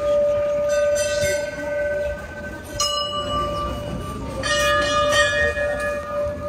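Temple bells rung by hand, struck several times a second or two apart, each strike ringing on over the bells' steady hum.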